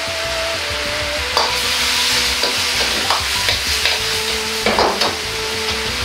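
Pork and cabbage sizzling in a carbon-steel wok while a metal ladle stirs and scrapes, with sharp metal scrapes and knocks of ladle on wok, the strongest about a second and a half in and again near five seconds; the stir-fry is being tossed after potato-starch slurry has gone in to thicken the sauce.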